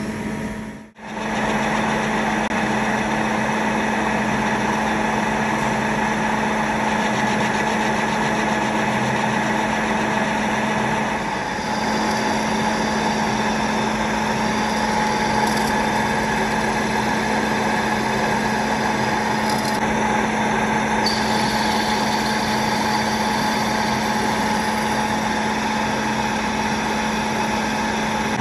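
Metal lathe running steadily while it machines a 316 stainless steel part, a constant motor and gearbox hum with the cutting going on underneath. The sound drops out briefly about a second in.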